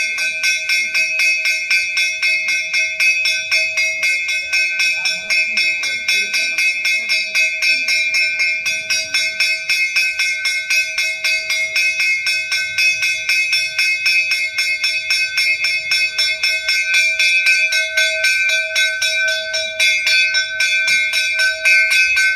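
Brass temple bell rung rapidly and evenly, about five strokes a second, its ringing tones carrying on unbroken between strokes.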